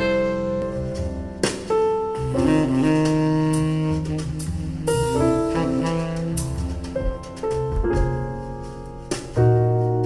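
Jazz with a saxophone lead over piano and bass, played back through hi-fi speakers and picked up by room microphones. It comes first from a pair of Micca RB42 bookshelf speakers, then partway through from Vandersteen Model 1Ci floor-standing speakers.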